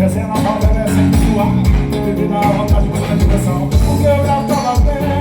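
Loud dance music with a heavy bass beat about twice a second under melodic instrument lines, in a stretch between sung lines.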